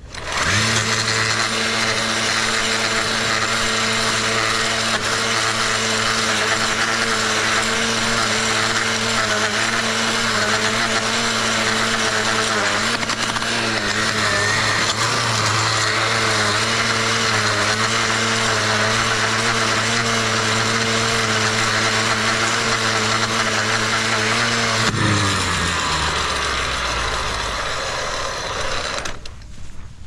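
Gas-powered stick blade edger, revved up about half a second in and held at high throttle while its blade cuts the grass edge along a concrete sidewalk and driveway. Near the end the throttle is let off and the engine falls in pitch, winding down to idle.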